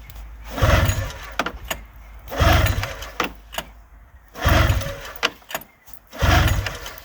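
Recoil starter of a 2000 Arctic Cat ZL440 snowmobile yanked four times, about every two seconds, the two-stroke twin turning over with each pull through its straight pipe without running on. Rattling clicks come between the pulls.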